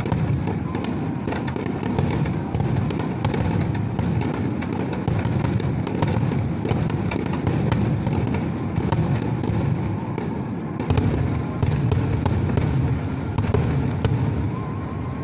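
Fireworks display: large aerial shells bursting in quick succession, a continuous low booming thick with sharp crackles. A louder boom comes about eleven seconds in.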